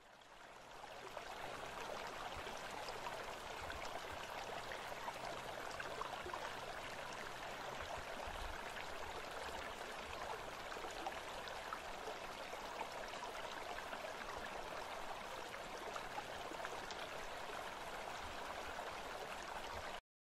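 Running water like a trickling stream, a steady crackling wash that fades in over the first second or so and cuts off suddenly near the end.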